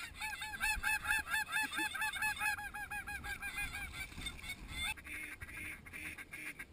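A rapid run of high, yelping snow goose calls, about four a second, tailing off after about four to five seconds.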